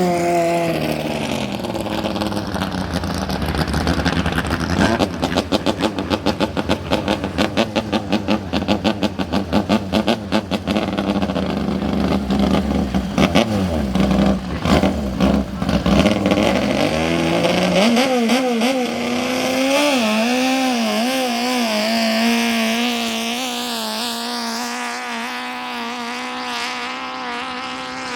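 Racing speedboat engines at high revs. One engine's pitch drops as it goes by, then the sound pulses rapidly for several seconds. Near the two-thirds mark a steady engine note takes over, wavering at first and then settling.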